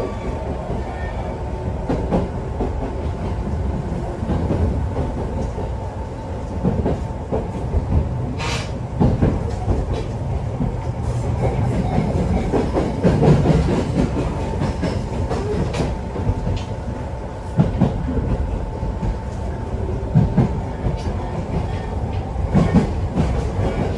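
Passenger train running, heard from inside the carriage: a steady rumble of wheels on rail with clickety-clack over the rail joints and occasional sharp knocks.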